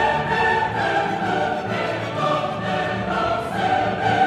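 Background music: a choir singing sustained notes in an operatic, classical style, with orchestra.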